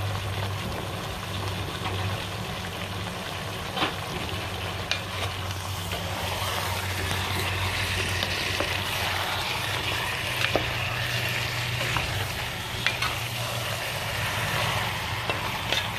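Chicken curry sizzling and bubbling in a pot while a wooden spatula stirs it, with a few light knocks of the spatula against the pot and a steady low hum underneath.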